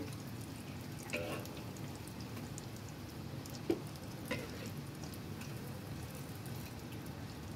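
Vegetable fritters (bakwan) shallow-frying in oil in a wok over medium-low heat with a steady sizzle. A few light clicks come from a metal spatula against the wok as the fritters are turned, around the middle.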